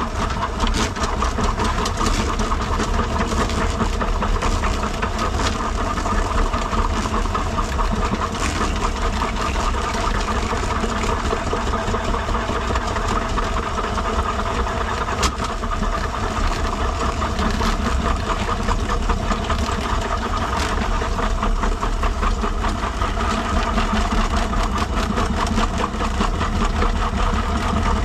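Electric sewer machine turning a drain cable through a clogged main sewer line: a steady motor drone with fast, uneven clatter of the spinning cable in the pipe.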